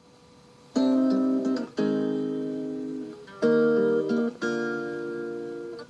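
Song intro on acoustic guitar: four chords struck about a second apart, each left to ring and fade, after a faint quiet start, played back from a cassette tape.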